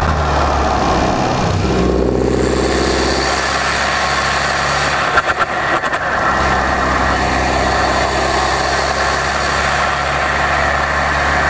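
Abarth 595 Competizione's tuned 1.4-litre turbocharged four-cylinder engine running as the car is driven, its note changing about two seconds in. A few sharp cracks come about five seconds in.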